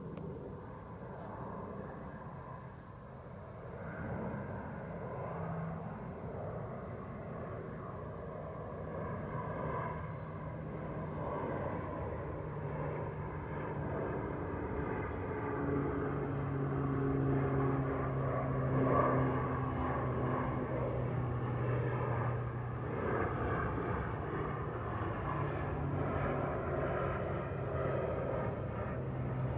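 Airplane flying overhead: a low, steady engine drone with a held hum, growing louder through the first half and staying loud to the end.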